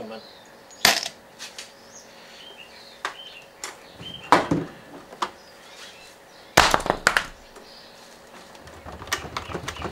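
Scattered knocks and clanks from a stripped-down front-loading washing machine's steel cabinet and parts being handled, with a cluster of louder clanks about two-thirds of the way through.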